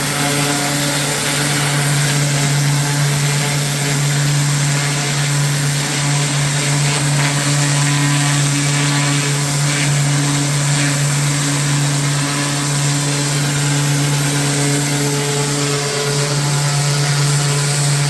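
A small engine-driven machine running steadily at constant speed, a steady hum under a continuous hiss.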